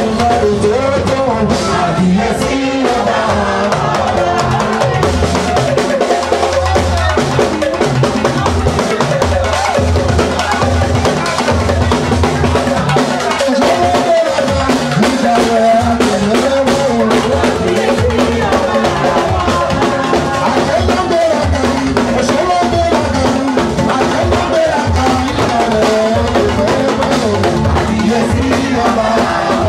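Music led by a drum kit and percussion, with bass drum and snare keeping a steady, dense beat under a melody line.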